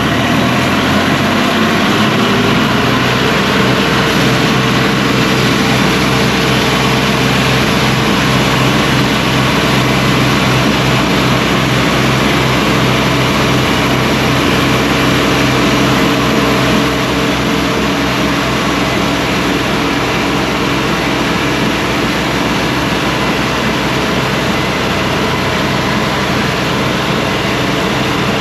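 Cook's AC 36 band sawmill's engine revving up over the first couple of seconds, then running steadily at high speed. Its loudness dips slightly about two-thirds of the way through.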